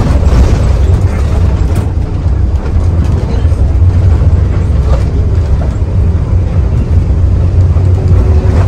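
Mercedes-Benz OH 1521 bus under way: a loud, steady, low rumble of engine and road noise.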